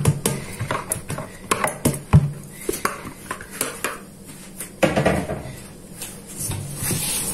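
Hands scraping and knocking around inside a plastic mixing bowl, gathering the last of the dough, in a run of light knocks and clatter; a louder knock about five seconds in.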